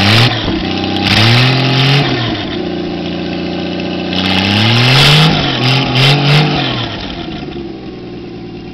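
A 1959 Studebaker 185 ci flathead straight-six, running on a stand, is revved up several times at the throttle, held up briefly, then blipped twice quickly before it drops back to a steady idle near the end.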